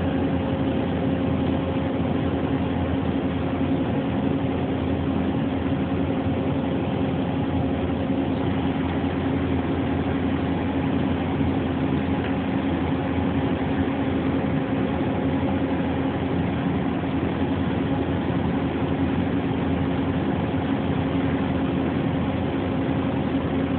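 Steady machinery hum in a machine shop: an even running drone with one constant low tone and an overtone above it, unchanging throughout.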